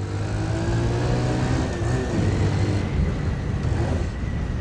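Motorcycle engine running with its exhaust removed as the bike is ridden, its note easing slightly downward over the first couple of seconds and then holding steady. It is not a very loud sound.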